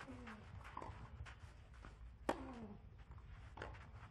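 Tennis rally: sharp racquet strikes on the ball about every one to one and a half seconds, the loudest about two seconds in. A player's short grunt, falling in pitch, comes just after the start and again with that loudest hit.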